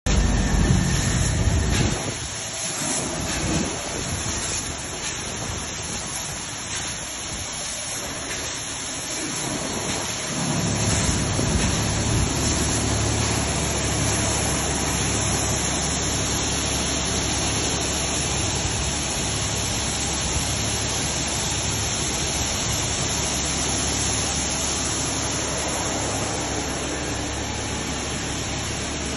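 Loaded belt conveyor running: a steady mechanical rumble and hiss from the belt and rollers carrying beans, with a low hum that grows stronger about ten seconds in.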